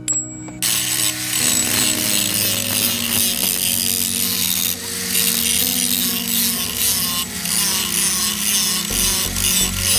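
Angle grinder with an abrasive disc grinding rust off the steel head of an old cross peen hammer clamped in a vise: a steady harsh grinding hiss that starts about half a second in.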